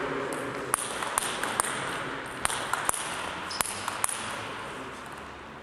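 A string of sharp, irregular clicks, each with a short high ringing, over a faint steady hiss.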